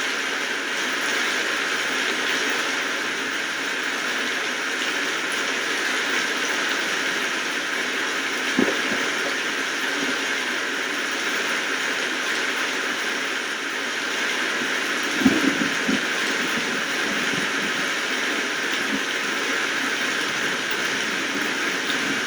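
Steady rain falling, an even hiss, with a single louder knock about eight seconds in and a short cluster of knocks about fifteen seconds in.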